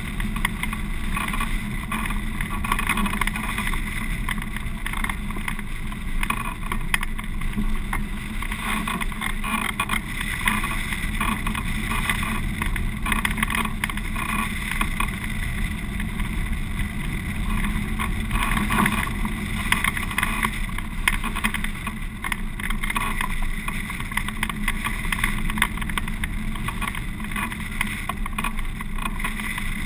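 Steady rushing wind noise from a hang glider in flight, buffeting a microphone mounted on the glider.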